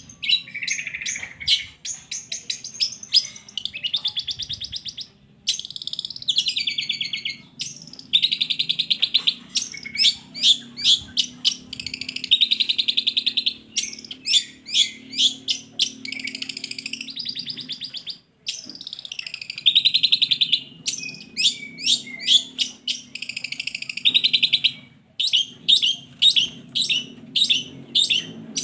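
Long-tailed shrike (cendet) singing continuously: quick sharp chips alternating with buzzy, trilled phrases, repeated with short pauses. It is a lure song meant to set a caged shrike singing. A faint steady low hum runs underneath.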